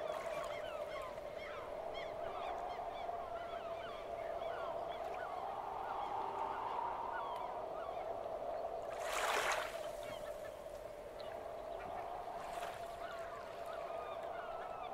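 A single horn-like tone held steadily throughout, with many short high chirps over it. A brief rush of noise comes about nine seconds in.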